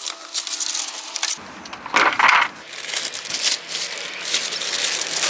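Plastic packaging wrap being pulled off a car side skirt, crinkling and rustling in irregular bursts.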